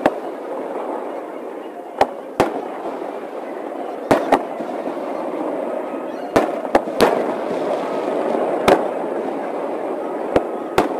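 Aerial fireworks shells bursting in sped-up playback: about ten sharp bangs, several in quick pairs. Under them runs a continuous din of sped-up voices.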